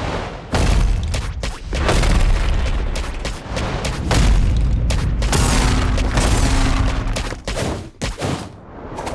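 Dense, layered fight sound effects: heavy booms and impacts in quick succession, with volleys of rapid hits.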